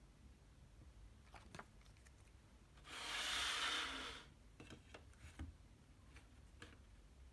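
Paper CD booklet and plastic jewel case being handled: a few light clicks, then a rustling rub of paper sliding across a surface for about a second and a half a little after a third of the way in, then soft taps and clicks of the case.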